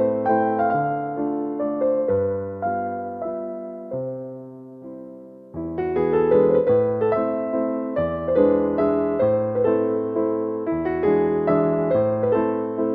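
Gentle piano music of sustained chords and melody notes; it fades to a quiet dip about four to five seconds in, then a louder phrase starts again.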